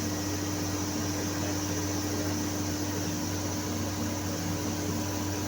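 Steady machinery hum with fan noise: a constant low drone with a clear steady tone over an even hiss, with no change in pitch or level.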